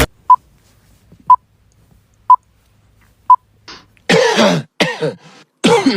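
Four short electronic beeps, one a second, like a countdown. About four seconds in, a person coughs several times in short, loud bursts.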